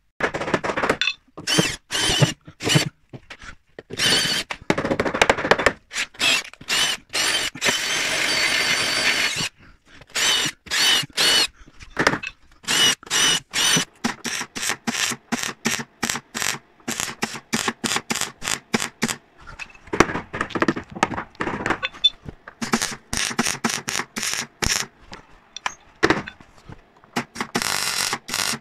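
Spot-weld drill bit squealing as it cuts paint off the holes in a steel car sill, in many short stop-start bursts and two longer runs early on. Near the end a MIG welder crackles briefly as the plug welds begin.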